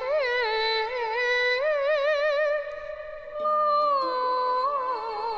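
Yue opera singing: a female voice draws out one long melismatic phrase with wide vibrato. Low instrumental accompaniment comes in beneath it about three and a half seconds in.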